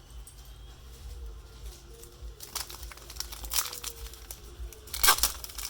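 Cellophane wrapper of a trading-card cello pack crinkling and tearing as it is ripped open. The crackles start about two seconds in and come in quick irregular bursts, loudest near the end.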